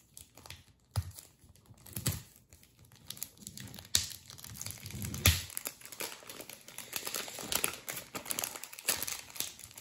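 Clear plastic wrap crinkling as it is peeled off a new 6x6 speed cube, with a few light knocks in the first half as the cube and its packaging are handled.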